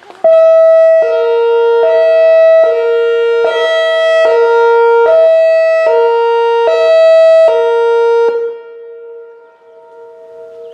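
Whelen Vortex R4 outdoor warning siren sounding its hi-lo tone: two pitches alternating evenly, each held for a little under a second. About eight seconds in the loud sound stops, and the two tones carry on faintly.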